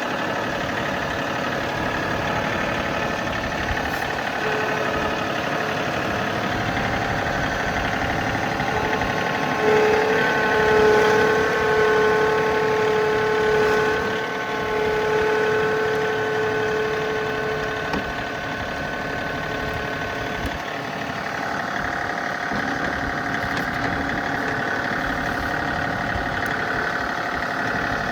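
Tractor engine running steadily. From about ten seconds in it gets louder for several seconds, with a steady whine over the engine, then settles back.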